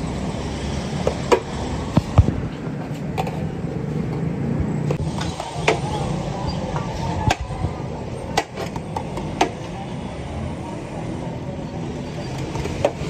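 Plastic plates knocking and scraping against a steel cooking pot and a large steel tray as boiled rice is scooped out and tipped in: scattered clinks and knocks a second or so apart, over a steady low rumble.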